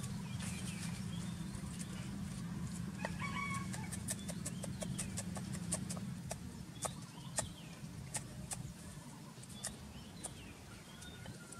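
Cleaver chopping red chillies on a round wooden chopping board: a run of sharp, uneven knocks, thickest in the middle. Birds call faintly in the background over a steady low hum.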